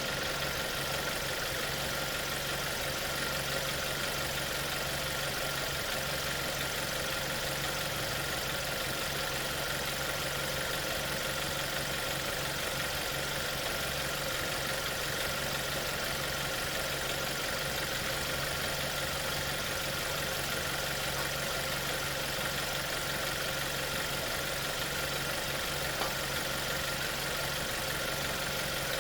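Volkswagen Golf Touran's engine idling steadily, with a constant hum and a few steady tones from the engine bay and its accessory belt drive. The engine is running on a newly fitted serpentine belt; the belt area had been making an abnormal noise before the replacement.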